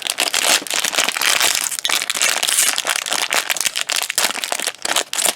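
Blind-bag packaging crinkling and crackling as it is handled and pulled open, with a steady run of quick sharp crackles.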